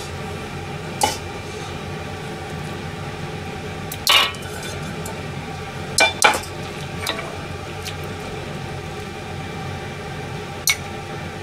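Kitchen clatter: about six separate clinks and knocks of utensils against pots and dishes, over a steady background noise.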